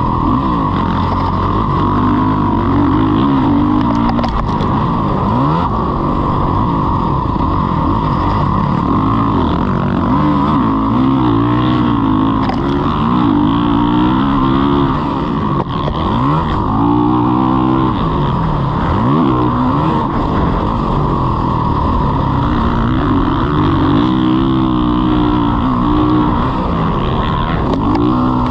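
Motocross dirt bike engine revving hard and dropping back again and again as the bike accelerates and slows around the track, over a constant rush of noise.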